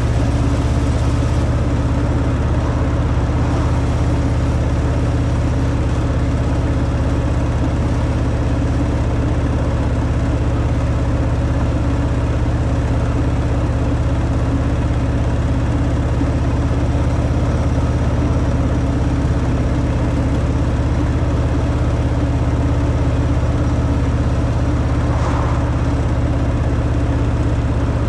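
Harley-Davidson Fat Boy's air-cooled V-twin running on its stock exhaust, holding steady revs with no change in pitch.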